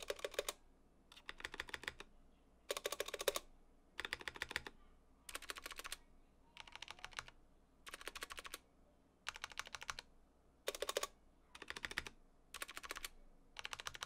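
Stabilized keys on Drop CTRL mechanical keyboards pressed in about a dozen short bursts of rapid clicks, a little over a second apart. It is a sound test comparing stock stabilizers with stabilizers that have been clipped, lubed with dielectric grease and cushioned with a Band-Aid strip.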